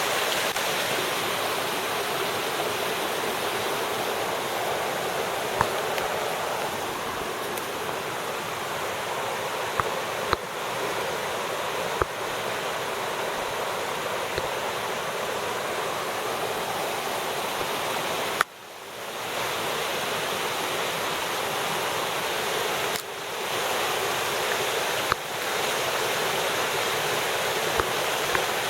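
Rain-swollen creek wash rushing, a steady full roar of fast runoff water, swollen by a hard rain. The sound drops off suddenly about two-thirds of the way through and builds back over a second or two, with another brief dip a little later.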